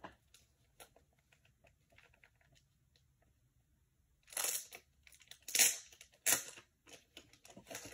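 Plastic wrapping of a sports card grab bag being handled and pulled open. It starts with a few faint clicks, then comes in three short bursts of crinkling about halfway through.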